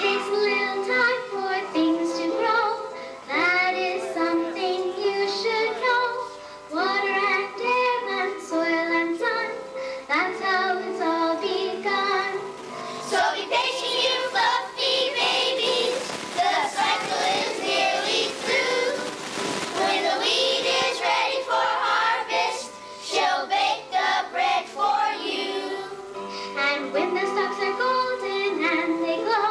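A group of children singing a song with musical accompaniment. About halfway through there is a denser, noisier stretch lasting several seconds.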